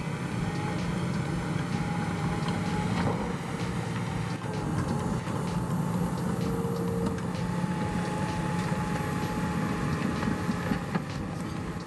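John Deere 850 crawler dozer's diesel engine running steadily under load as the machine pulls its ripper shank through the ground. Occasional short high squeals and clicks come from the machine over the engine note.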